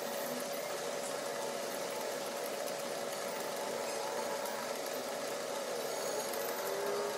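Steady hum of a small motor running, one constant mid-pitched tone over an even hiss.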